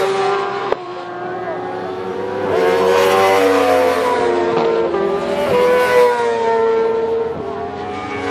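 Several sport motorcycle engines running hard at high revs, their notes overlapping and rising and dropping in pitch through the gear changes. A sharp click sounds just under a second in.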